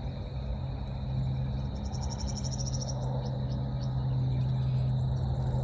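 An insect trilling in a fast, high pulsed burst for about a second, about two seconds in, followed by scattered short chirps, over a steady low hum.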